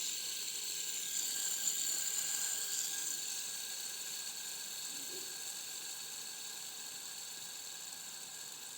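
Fidget spinner spinning freely on its ball bearing: a steady high-pitched whir that slowly gets quieter as it winds down.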